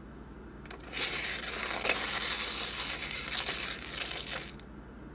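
A sheet of paper crumpled and crushed by hand: dense crinkling that starts about a second in and stops shortly before the end.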